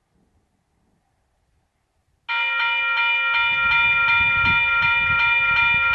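Railroad grade-crossing bell starting up suddenly about two seconds in and ringing in a rapid, even rhythm as the crossing signals activate for an approaching train. A low rumble builds underneath.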